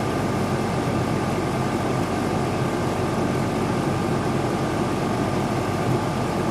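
Air conditioner running steadily: a constant rush of air over a low hum, with a thin high tone held throughout.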